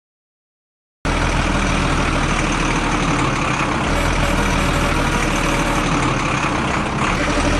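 A vehicle engine running steadily with a low, even hum, cutting in abruptly after about a second of silence.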